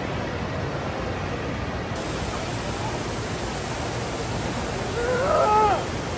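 Steady rushing wash of noise from the atrium's indoor river and a murmuring crowd. About five seconds in, a person gives a short exclamation that rises and falls in pitch.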